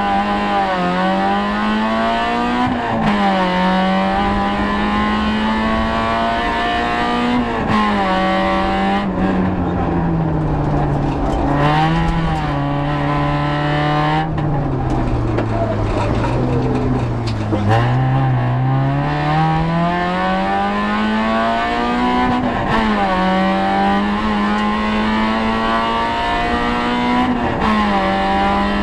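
Citroën Saxo VTS rally car engine heard from inside the cabin, revving hard through the gears: the pitch climbs and then drops sharply at each upshift. In the middle the engine note sinks slowly as the car brakes and shifts down, then it climbs again under full throttle.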